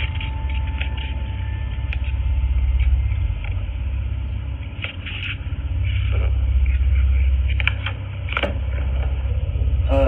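Low rumble picked up by a Ring doorbell camera's microphone, swelling and easing, with a few faint clicks around the middle and near the end.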